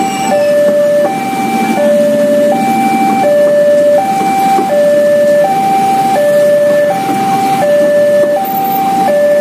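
Railway level-crossing warning alarm: an electronic two-tone signal that steadily alternates a higher and a lower note, each about three-quarters of a second long, warning that a train is passing and the crossing is closed. Under it runs the steady rumble of a KRL commuter electric train crossing and of waiting traffic.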